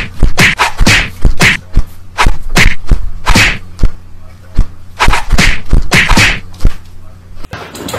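A rapid string of sharp slapping whacks, two or three a second, from a cat's paw swatting at a small dog jumping up at it, over a steady low hum.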